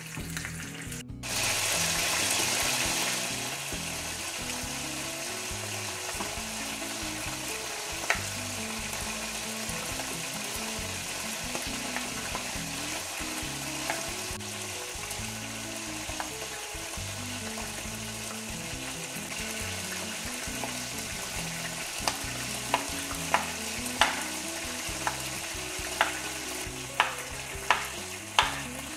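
Chicken drumsticks sizzling as they fry in a pan, loudest for a couple of seconds just after they go in, then a steady sizzle. Near the end, a knife chopping on a wooden cutting board gives a run of sharp knocks.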